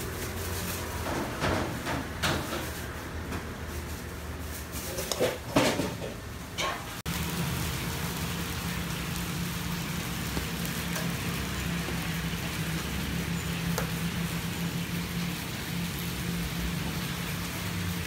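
Steady sizzling hiss, as of stuffed buns frying in an oiled pan, with a low hum under it. It follows an abrupt cut about seven seconds in; before that come scattered short clatters.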